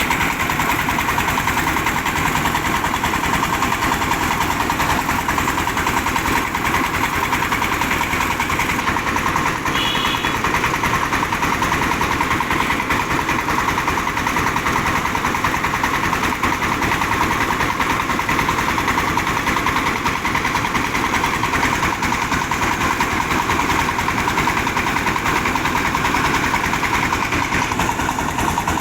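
Engine of a mobile rice-milling machine running steadily at an even speed, with no change in pace.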